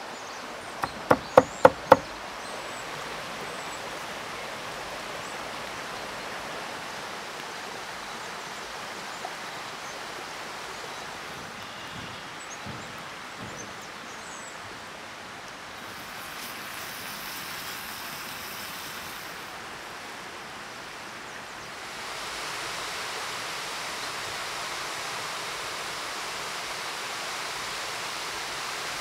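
Five quick, sharp chops of a cleaver through a bundle of herb stems on a wooden board, about a third of a second apart. Then a steady, even rushing hiss of outdoor ambience that grows louder about three quarters of the way through.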